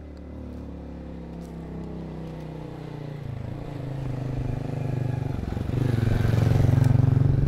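Motorbike engine running, getting steadily louder.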